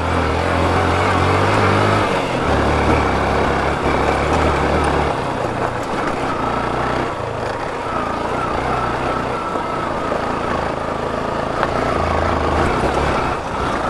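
Yamaha FZ motorcycle engine running while the bike is ridden over a rough off-road track, under a steady haze of wind and road noise. The low engine note swells and eases as the throttle changes.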